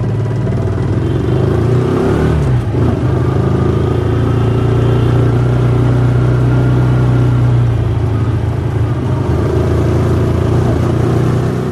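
Motorcycle engine running steadily as the bike rides along, its pitch shifting briefly two to three seconds in.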